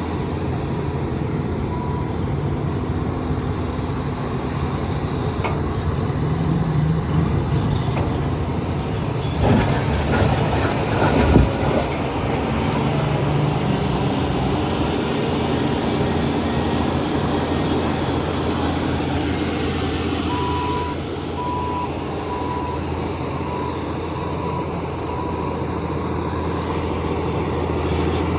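Diesel engines of heavy earthmoving machines running steadily under work, with a reversing alarm beeping near the start and again about two-thirds of the way through. Loud metallic clanking and knocking about ten seconds in.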